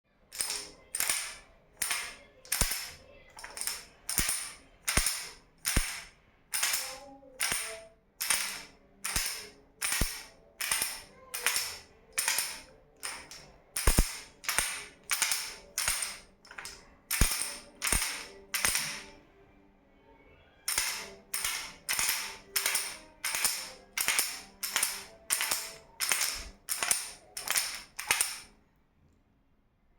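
A baby's toy rattle shaken in a steady rhythm, each shake a short bright rattling burst, a little more than one a second. It pauses briefly about two-thirds of the way through, then resumes until shortly before the end.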